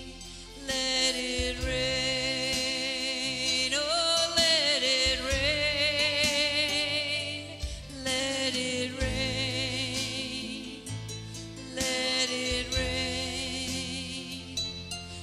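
Live worship music: a singer holding long notes with vibrato in phrases over a band with a steady bass, with a sliding run about four seconds in.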